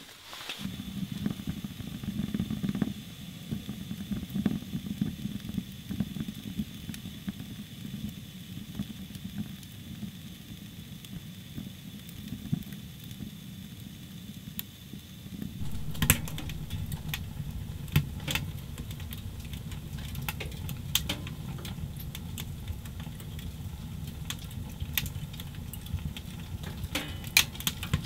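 Wood fire burning in a Pomoly tent stove: a steady low rushing from the flames, with scattered sharp crackles and pops that come much more often from about halfway through.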